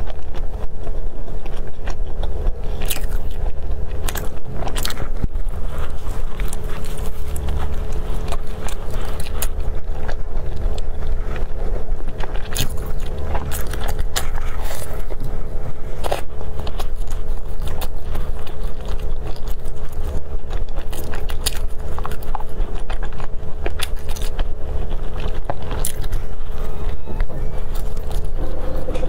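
Close-miked eating: a person biting into and chewing grilled corn with meat, with many small wet clicks and crunches. A steady low hum runs underneath.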